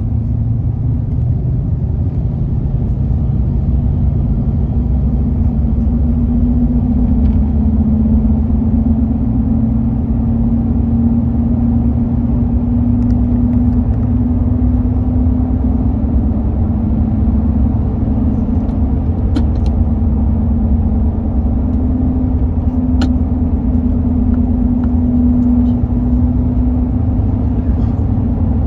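A 2005 Toyota Tundra humming while it is driven and accelerated: one steady hum over low road and engine rumble. The hum grows louder for a long stretch in the middle and again near the end.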